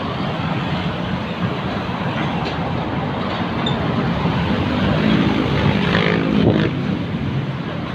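Steady road traffic from cars and motorcycles passing on the adjacent boulevard, swelling a little louder about five to six seconds in as a vehicle goes by.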